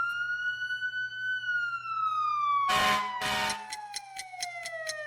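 Fire truck siren sounding a slow wail. The pitch holds high, then falls gradually over several seconds and begins to rise again near the end. Two short horn blasts come about three seconds in.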